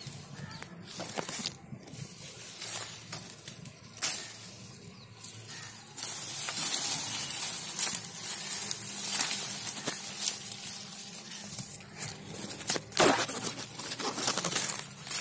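Guava leaves and branches rustling as they are handled close to the microphone while fruit is picked by hand, with a few sharp clicks, the loudest near the end.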